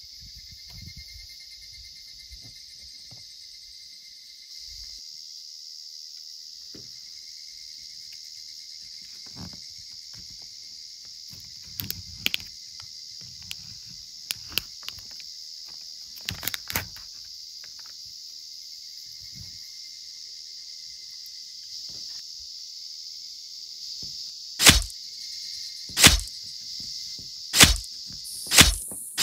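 A steady, high-pitched insect chorus, with a few light crinkles and clicks as the film lid is peeled off a plastic tray of luncheon meat. Near the end come sharp knocks about a second and a half apart as the meat is cut into slices in its tray.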